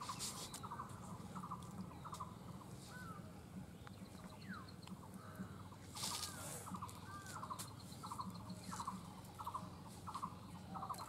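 A bird repeating a short trilled call, a little more than once a second. There are brief rustling noises at the start and again about six seconds in.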